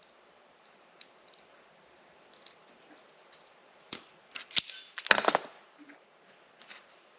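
Hands working wire and small tools: a single tick, then a cluster of sharp clicks and scrapes about four to five and a half seconds in, and a few light clicks near the end, as power-cord wires are readied for splicing.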